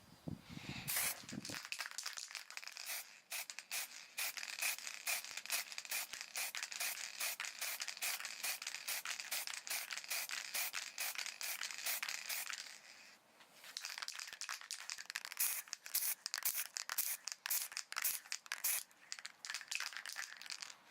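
Rapid back-and-forth abrasive strokes on a wooden lure body, scratchy and dense, stopping briefly about two-thirds of the way through before starting again. A low knock of handling comes about a second in.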